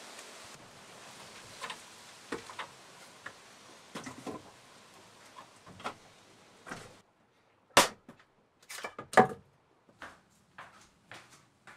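Footsteps and small knocks over a faint outdoor hiss. Then, in a small wooden room, a run of sharp wooden knocks and clunks, the loudest about 8 and 9 seconds in, as a wooden carrier of firewood logs is handled.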